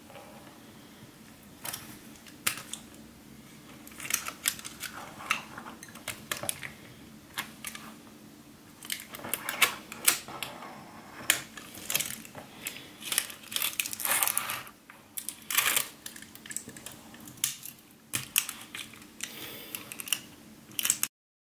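Kapton tape being pulled off the roll and wrapped around a block of six 18650 lithium-ion cells: irregular crackling of the tape and clicks of the cells being handled. The sound stops abruptly near the end.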